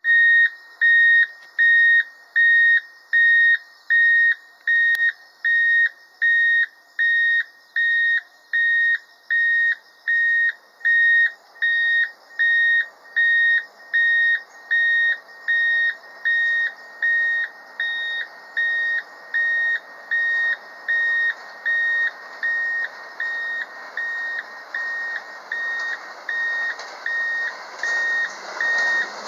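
Railway crossing warning bell beeping steadily at about one and a third beeps a second. Underneath it, the rumble of the approaching 285 series Sunrise Express electric train builds from about halfway and grows loud near the end.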